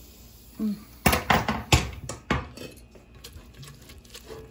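Wooden spoon knocking several times against the side of a steel pressure-cooker pot, then stirring thick cooked whole green moong dal more quietly. The knocks come in a quick cluster between about one and two and a half seconds in.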